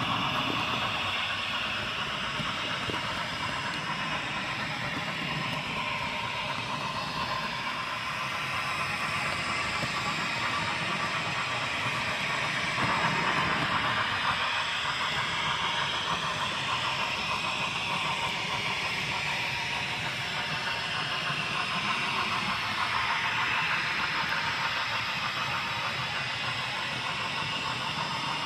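HO scale model train running along its track: a steady hiss and rumble of the motor and wheels, with a whine that slowly rises and falls in pitch.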